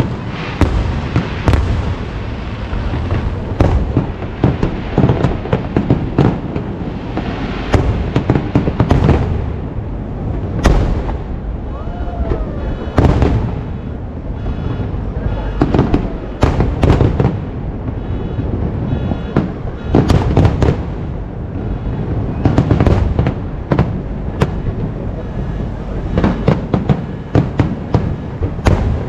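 Fireworks display: aerial shells bursting one after another, a dense run of sharp bangs every second or so over a continuous rumble, with several heavier bangs scattered through.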